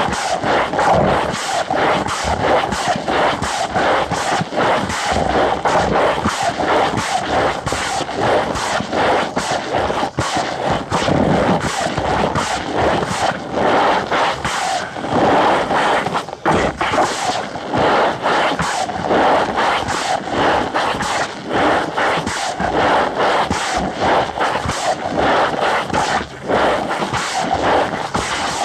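Cornstarch powder being crushed in play, a dense unbroken run of crackly squeaks.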